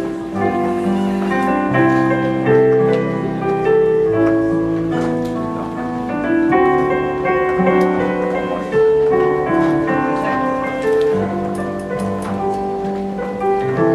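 Keyboard music, piano-like, playing a slow melody over sustained chords.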